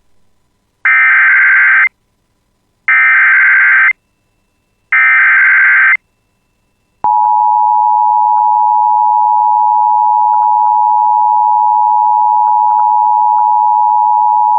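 Emergency Alert System tones. First come three bursts of SAME header data, about a second each and a second apart, encoding a severe thunderstorm warning. Then, about seven seconds in, the steady two-tone EAS attention signal begins and holds, announcing the alert message.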